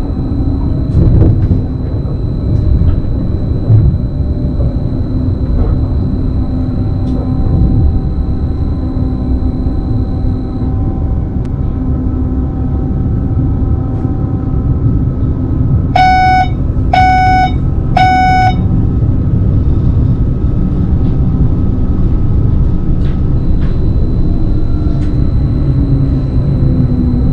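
BLS RABe 515 double-deck electric multiple unit running along the track, a steady rumble from the wheels and running gear with a faint high whine that stops about ten seconds in and comes back near the end. About sixteen seconds in, three short electronic beeps sound, about a second apart.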